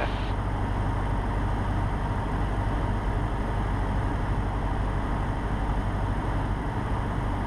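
Cessna 150's Continental O-200 four-cylinder engine and propeller running steadily at reduced power, about 1300 rpm, with airflow noise, heard inside the cabin.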